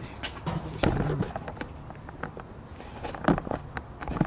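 Several short knocks and light scrapes as the belt grinder's adjustable work table is shifted and repositioned by hand. The loudest knock comes a little over three seconds in.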